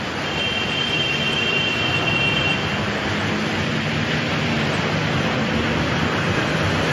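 Cars driving slowly through deep flood water: a steady rush of churned water from the tyres over low engine noise. A faint high squeal sounds for the first couple of seconds.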